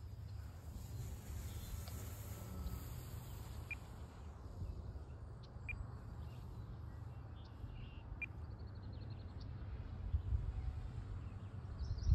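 Low rumble of wind buffeting the microphone outdoors, with three short bird chirps.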